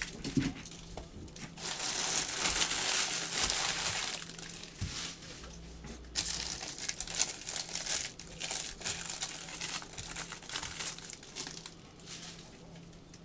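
Foil trading-card pack wrappers crinkling and tearing in irregular stretches as basketball card packs are handled and ripped open.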